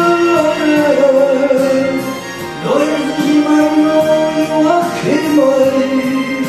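A singer singing a Japanese ballad into a handheld karaoke microphone over a backing track, holding long notes, with new phrases starting about a third and three quarters of the way through.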